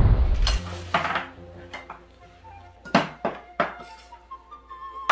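Bowls, spoons and a serving platter clinking and knocking on a table as food is served, opening with a loud thud. Faint background music comes in about halfway through.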